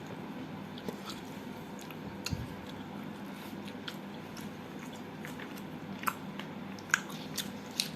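Close-up chewing of soft butter chicken and chapati: scattered wet mouth clicks and smacks at an irregular pace, the sharpest about six and seven seconds in.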